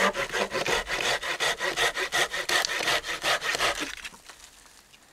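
Folding hand saw cutting through a dead poplar branch: quick back-and-forth strokes, about four a second, that stop about four seconds in.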